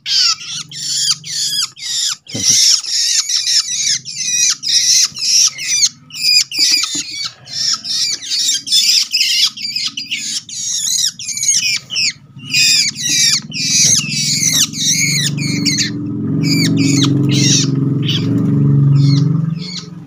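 Juvenile long-tailed shrikes (cendet) giving rapid, rasping squawk calls, two or three a second, with a short lull about a third of the way in. A low rumble builds under the calls in the last third.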